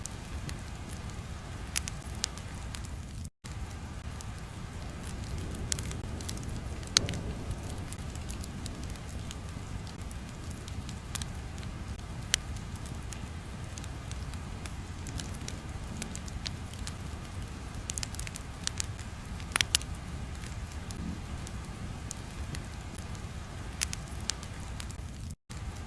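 Crackling fire ambience: a steady low rumble with scattered sharp pops and snaps, broken twice by a split-second dropout to silence.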